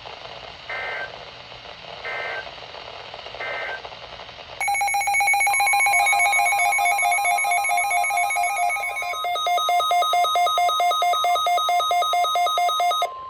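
Weather radio Emergency Alert System sequence. First come three short warbling data bursts of the SAME header, about 1.4 s apart, over a steady hiss. Then a loud, rapidly pulsing alarm starts, and about a second later the steady single-pitch warning tone joins beneath it; the pulsing alarm cuts off near the end while the tone carries on.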